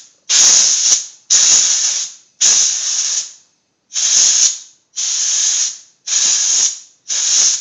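Compressed-air blow gun on a shop air hose giving about seven short blasts of air, each under a second, starting sharply and tailing off, with one longer pause midway. It is blowing metal chips and solvent off a rifle chambering reamer between cuts.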